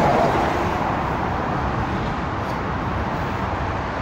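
Steady roadway traffic noise, a continuous hum of cars and tyres on the road, a little louder at the start.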